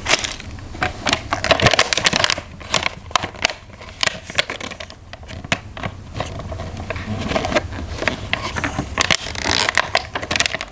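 Plastic toy packaging and toy train parts being handled: crinkling and crackling with many sharp clicks and taps, in irregular bursts.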